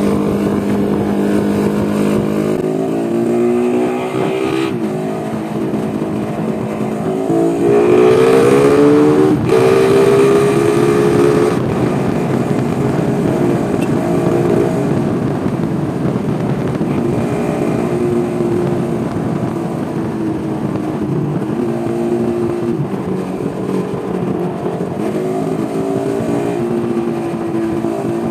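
Motorcycle engine running on the move, its pitch rising and stepping with throttle and gear changes; it climbs to its loudest and highest about eight to ten seconds in, then settles to a steady cruise, with a rush of road and wind noise underneath.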